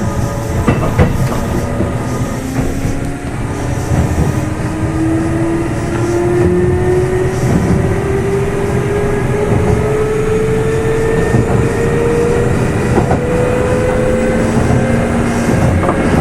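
Kintetsu 2800 series electric train heard from inside a motor car: traction motor and gear whine rising steadily in pitch as the train accelerates, over the rumble of the bogies and scattered clicks from the rail joints.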